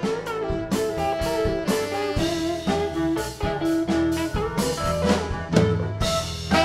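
Live band playing an instrumental passage: electric guitar and electric bass over a drum kit, with drum hits every half second or so.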